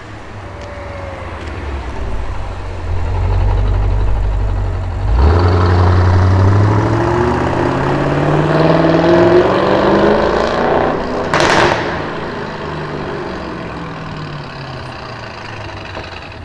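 Audi RS6 C7's twin-turbo V8 accelerating hard: a low rumble builds, then the engine note climbs steadily in pitch for several seconds. A sharp crack comes about two-thirds of the way through, and the note then drops and fades away as the car pulls off.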